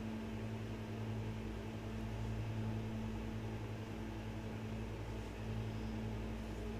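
A steady low hum with a faint hiss, like a fan or motor running.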